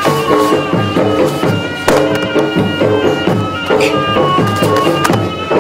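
Traditional pencak silat accompaniment music: a reedy wind instrument plays a stepping melody over a steady drum rhythm.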